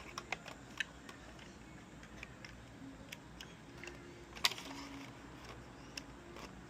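Scattered light clicks and taps of small plastic parts being handled, a few in the first second and the sharpest about four and a half seconds in.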